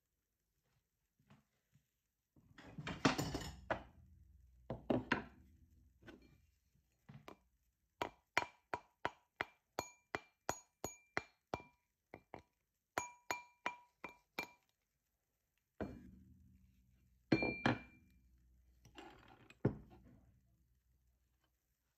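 A ring being tapped with a rawhide mallet on a steel ring mandrel: a run of quick taps, about three a second, each with a bright metallic ring, then a couple of heavier knocks. Handling and rubbing of the ring and mandrel come before the taps.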